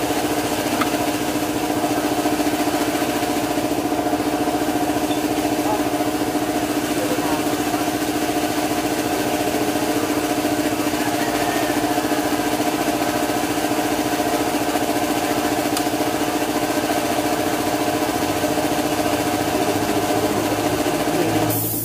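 A motor running steadily at one even pitch, a constant mechanical hum.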